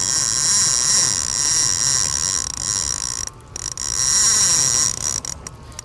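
Daiwa conventional fishing reel's drag buzzing as a hooked fish pulls line off against a light drag setting. It cuts out briefly about three seconds in and stutters to a stop near the end.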